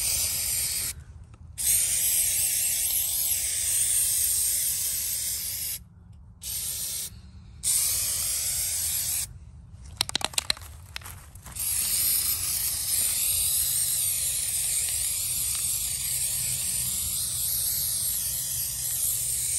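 Aerosol can of spray-on rubber coating hissing out in several bursts with short gaps between them, the last and longest lasting about eight seconds. A quick run of sharp clicks comes about ten seconds in.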